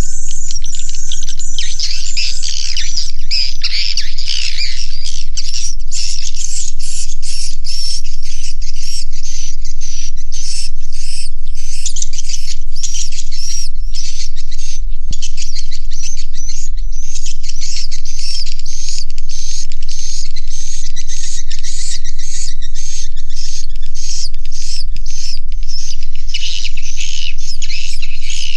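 A dense flock of swiftlets twittering inside a swiftlet house, a continuous loud chorus of high chirps that pulses about twice a second from a few seconds in. A steady low electrical hum runs underneath.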